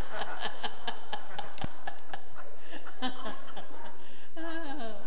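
People laughing and chuckling at a joke's punchline, with rapid pulsed laughs in the first couple of seconds giving way to scattered chuckles. A single sharp knock sounds about a second and a half in.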